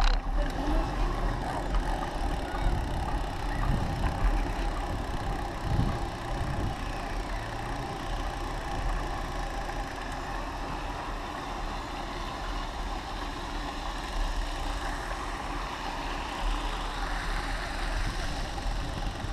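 Bicycle riding along a tarmac path: wind rumbling on the microphone over the steady hiss of the tyres, with a few low bumps between about three and six seconds in.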